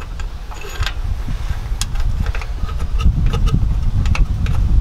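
Scattered light metallic clicks and taps as the starter's mounting bolts are turned in by hand against the starter housing. Under them runs a low rumble that grows louder about three seconds in.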